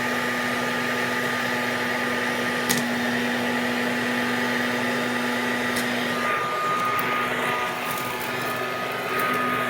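Hoover Dustette Model 100 hand vacuum running steadily, its motor humming as it sucks up dust and small debris. There is a sharp click about three seconds in. About six seconds in the motor's note shifts higher and a few small ticks follow, and the lower hum returns near the end.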